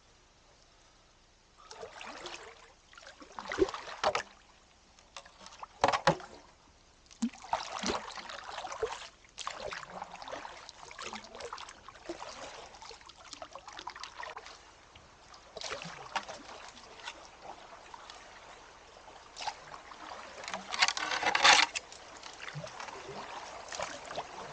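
Canoe paddle strokes in a shallow creek: irregular splashing swishes with water trickling between them, a few sharp knocks about four and six seconds in, and the loudest splash about twenty-one seconds in.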